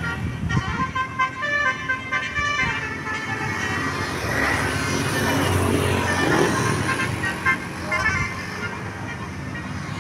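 Bus telolet horn playing a quick multi-note tune for about the first three seconds, with a few more short notes near the end. Between the tunes a diesel bus engine is running.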